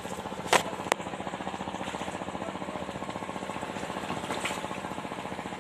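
Small engine running steadily with a rapid even pulse, about eight beats a second. Two sharp clicks about half a second and a second in.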